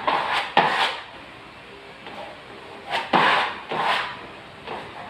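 A hand tool or pad scraping and rubbing against wallpaper on a wall, in a few short, uneven strokes.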